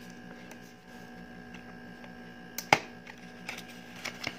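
Cardboard packaging tray being handled and worked open, with a few faint ticks and one sharp click nearly three seconds in, over a faint steady hum.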